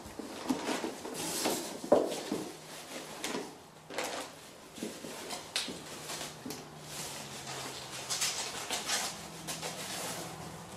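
Cardboard box being slit open with a utility knife, then cardboard and plastic bubble wrap rustling and crinkling as a wrapped bicycle suspension fork is pulled out. Irregular handling noise with a few sharp knocks, the sharpest about two seconds in.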